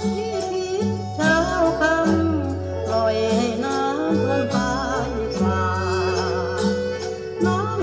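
Background music: a song with a singing voice, its held notes wavering with vibrato, over low sustained bass notes that change every second or two.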